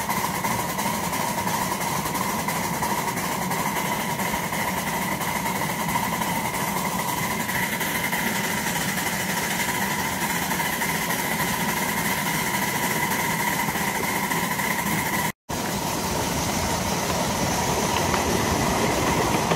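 Miniature vertical-boiler steam locomotive running along the track with its riding car: a steady mechanical rumble of the engine and wheels on rail, carrying a constant high ringing tone. The sound drops out for a moment about fifteen seconds in.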